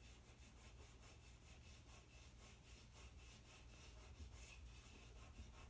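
Faint rubbing of a kneaded eraser on black drawing paper, working into white charcoal tone in quick, even back-and-forth strokes.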